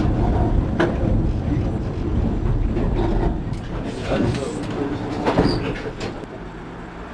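An EGT6 tram heard from its driver's cab running along the track: a steady rumble of wheels and running gear, with a few sharp clicks along the way. The rumble gets quieter about six seconds in.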